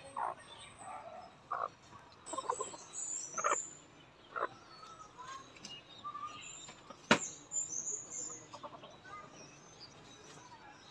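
Birds chirping: many brief, high chirps, with scattered short calls lower in pitch. A single sharp click about seven seconds in.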